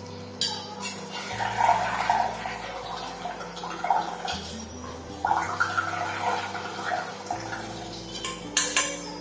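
Air blown through a straw into a bowl of soapy water, bubbling and gurgling as foam builds up, with a few sharp clinks of the straw against the steel bowl. Background music plays underneath.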